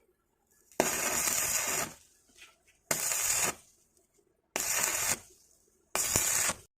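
Stick (electric arc) welding on steel tube: the arc crackles and sizzles in four short runs of under a second each, struck and broken again between runs.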